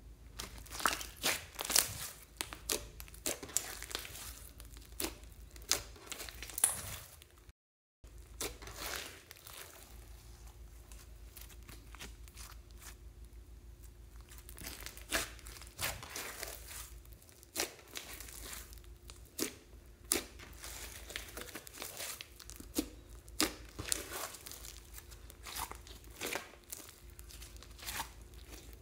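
Clear slime mixed into glitter slime being pressed, folded and stretched by hand, giving irregular sticky crackles and pops. The sound drops out for a moment about eight seconds in.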